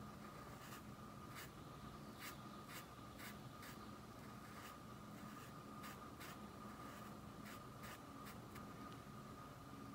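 Paintbrush scratching short strokes of white paint onto cloth, faint, about one or two strokes a second, stopping a little before the end, over a faint steady hum.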